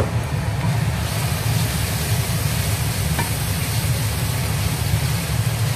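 Minced beef frying in oil in a stainless steel pot, sizzling steadily as a wooden spoon stirs it through, over a steady low hum.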